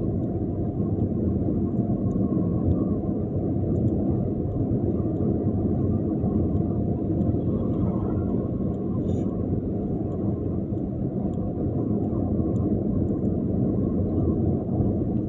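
Steady low rumble of a vehicle on the move, an unbroken noise with no horn or distinct events.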